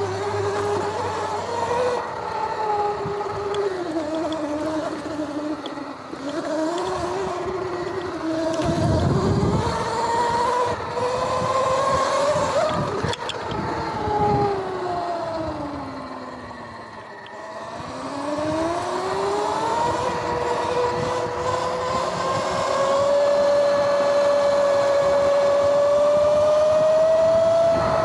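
Sur-Ron X electric dirt bike's motor and chain drive whining as it rides. The pitch rises and falls with speed, drops low about two-thirds of the way through as the bike slows, then climbs again and holds steady. A low rumble comes about nine seconds in.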